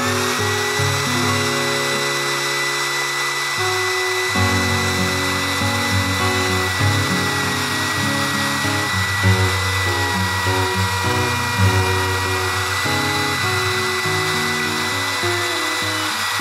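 A handheld circular saw's motor running at a steady high-pitched whine, under background music.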